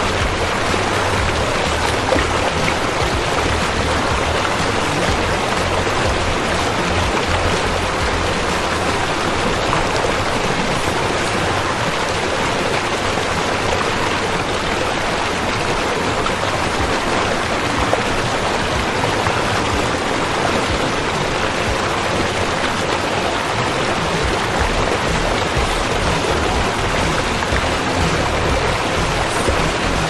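Tall waterfall plunging into a pool: a steady, even rush of falling water.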